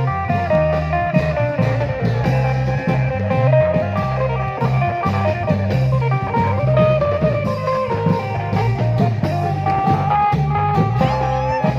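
Thai klong yao long-drum band music: steady drum beats under a plucked-string melody and bass line.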